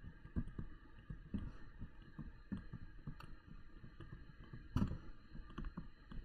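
Faint, irregular taps and clicks of a stylus writing on a touchscreen, with a louder knock near the end.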